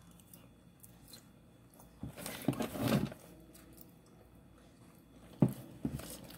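Close-up eating sounds: chewing and a plastic fork working through rice on a paper plate, with a louder noisy burst about two to three seconds in and a sharp click about five and a half seconds in.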